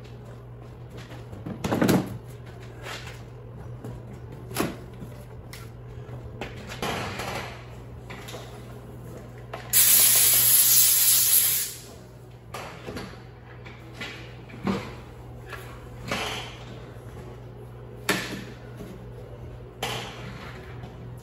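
A compressed-air blow gun on a shop air hose gives one loud hiss about ten seconds in, lasting about two seconds. Around it come scattered knocks and clunks of parts being handled, over a steady low hum.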